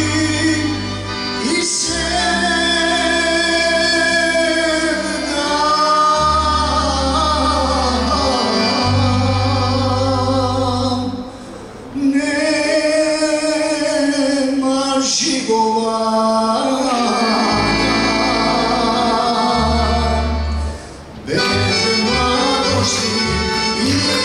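Male vocalist singing a Bosnian sevdalinka in long, wavering melismatic phrases, backed by accordion, acoustic guitar and bass guitar, with two brief breaths between phrases.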